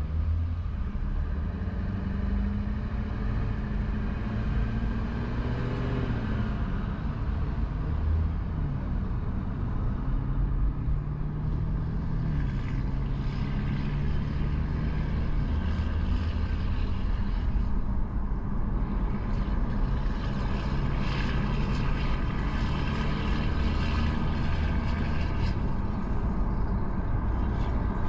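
Car driving on a highway: a steady low engine and tyre rumble, the engine note rising and dropping back a few times in the first half.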